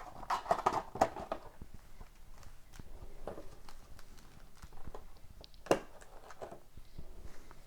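Light taps, clicks and brief rustles of a sealed hobby box of hockey-card packs being handled and opened on a table.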